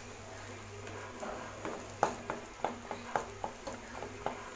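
Spatula stirring shallots, garlic and green chilli frying in oil in an aluminium kadai: a run of sharp taps and scrapes against the pan, loudest about two seconds in, over a faint sizzle.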